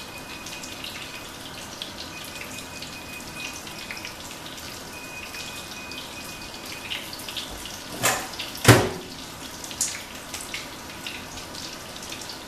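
Fish sizzling in a frying pan under a long electronic beep at one steady high pitch, heard three times over the first seven seconds. Two loud knocks come a little after eight seconds in.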